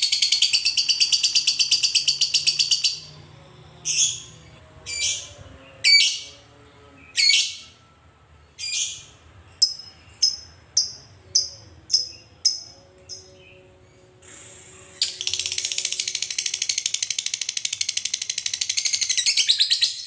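Fischer's lovebird ending a long rapid chattering trill (ngekek). It then gives about a dozen single sharp chirps (ngetik), at first about a second apart and then about two a second, and breaks into another long chattering trill about 15 seconds in.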